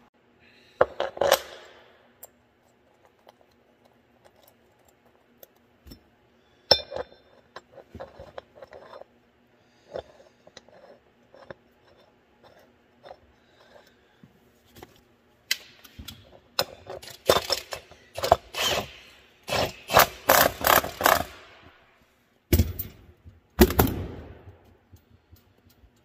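Metal parts of a planter gauge wheel and its new gauge wheel arm being handled and fitted on a steel workbench: scattered light clinks and scrapes, a busy run of quick scraping strokes past the middle, and two heavier knocks near the end.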